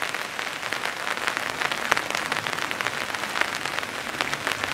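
Rain falling on a tarp overhead: a steady hiss with many separate drops ticking on the fabric.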